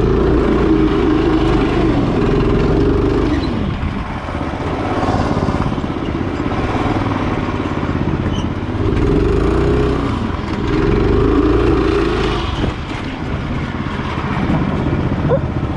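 Yerf-Dog go-kart's 390cc Honda big-block engine under hard throttle on a dirt track. It revs high, eases off about four seconds in, then pulls up again twice before backing off near the end.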